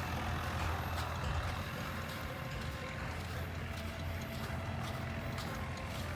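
Roadside traffic noise: a steady low engine rumble of passing and idling vehicles, with a few light taps over it.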